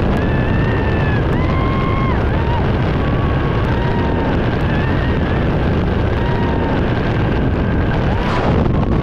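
Loud, steady rush of freefall wind buffeting the camera microphone during a tandem skydive. A woman's high-pitched cries rise and fall through the noise several times.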